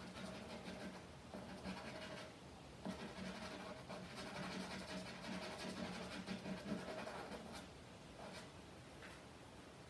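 A charcoal stick scratches and rubs across the canvas in quick, uneven strokes as a figure is shaded in.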